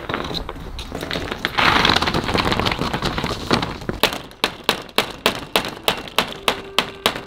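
Hammer driving a nail into wood: a steady run of sharp strikes, about three a second, starting about four seconds in. Before that, irregular clattering and knocking of building materials.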